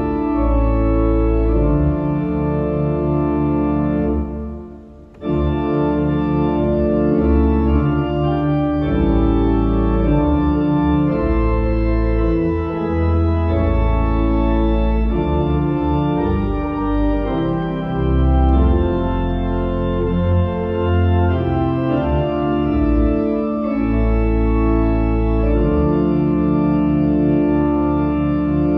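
Church pipe organ playing a hymn tune in full, sustained chords over a deep pedal bass, with a short break between phrases about five seconds in.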